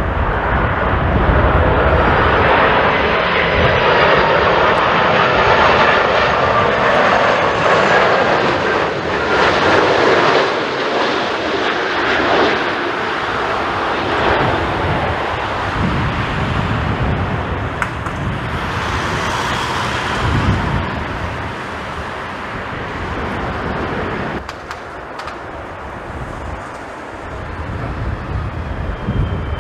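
Jet airliner's engines passing close: a loud roar with a high turbine whine that builds over the first few seconds and fades away after about twelve seconds. Gusty wind buffets the microphone throughout.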